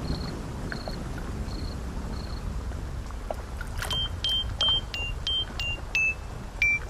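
Steady rain with a cricket chirping, short high chirps about every 0.7 s that stop about two and a half seconds in. From about four seconds a run of high plinking notes at changing pitches, about two a second, sounds over the rain.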